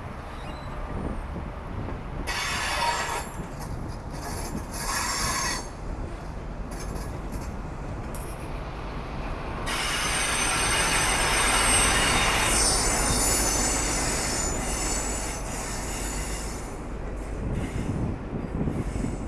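High Speed Train (InterCity 125) moving through the station, its Mark 3 coaches rolling past over a steady low diesel rumble from the class 43 power cars. High-pitched wheel squeal comes twice briefly a couple of seconds in, then more strongly for about six seconds from ten seconds in.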